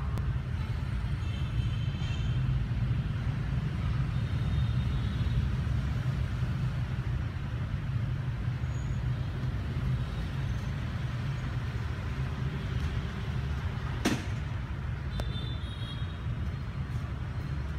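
Steady low rumble of motor vehicles, with a single sharp click about fourteen seconds in.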